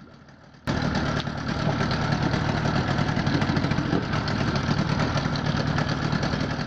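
Yamaha Enduro 30 hp two-stroke outboard motor running steadily at idle. It comes in abruptly after a brief lull, less than a second in.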